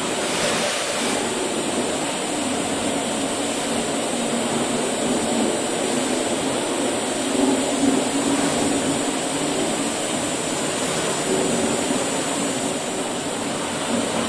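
Automatic satin-finishing machine running, its abrasive brush wheels spinning on their spindle and working along an aircraft fitting: a steady whirring rush with a low hum underneath.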